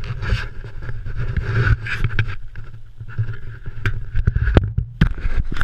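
Knocks and clatter against an aluminum jon boat while a large bass is landed and handled, over a steady low rumble. The sharpest knocks come in a cluster near the end.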